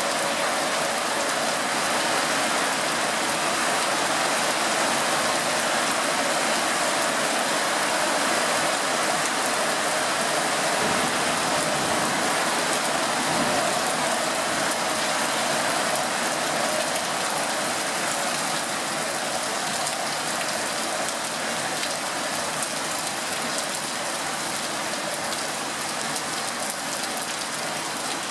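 Small hailstones falling steadily and hitting a mat and the ground around it, a dense, even noise that eases a little after about halfway.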